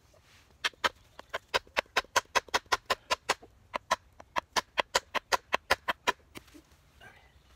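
Rapid wooden knocks as the end of a green-wood hatchet handle, set through the hatchet head, is struck over and over, about four or five sharp blows a second, with a short pause near the middle.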